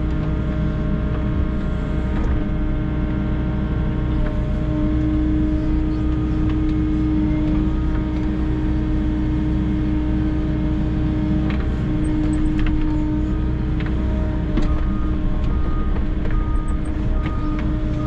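Volvo EC60E mini excavator running steadily while its bucket digs and dumps soil, heard from the operator's cab, with a steady whine over the engine and occasional short knocks.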